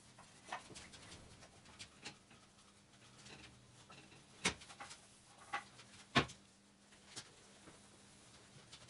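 Scattered light knocks and clicks from a painter moving about a spray booth and handling parts, the two sharpest about four and a half and six seconds in, over a faint steady low hum.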